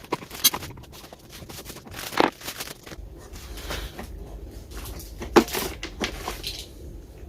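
Scattered clicks and knocks of screws and a plastic housing being handled, with the loudest knocks about two and five seconds in, as screws are taken out of a shop vacuum's plastic motor head.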